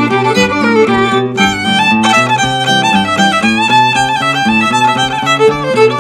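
Fiddle and acoustic guitar playing an old-time fiddle tune. The fiddle carries a quick, continuous melody over the guitar's steady rhythm.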